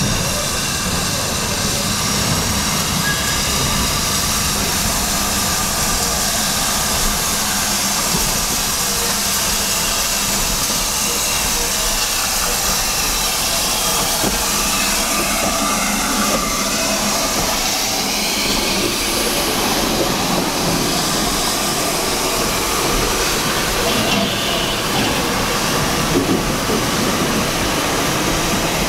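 London & South Western Railway S15 class steam locomotive No. 506 running light slowly past at close range, with a steady hiss of steam.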